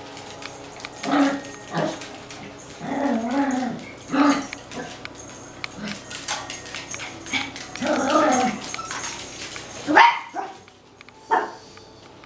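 Small dogs barking and yapping at play: scattered sharp barks, a couple of them drawn out, with the loudest bark near the end.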